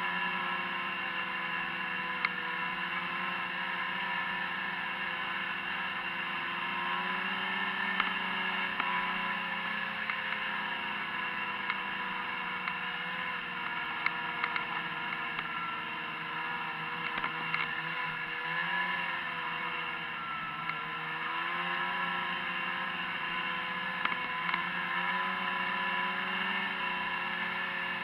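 Snowmobile engine running steadily at trail-riding speed. Its pitch dips and climbs again with the throttle about twenty seconds in, and a few light clicks sound over it.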